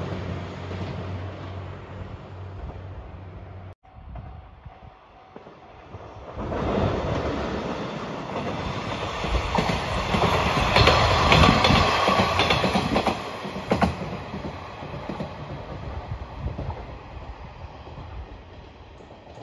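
Seto Ohashi Anpanman Torokko sightseeing train passing at close range: a steady low hum for the first few seconds, then a rumble that builds up, peaks with rapid clacking of wheels over rail joints about halfway through, and fades as the train goes by.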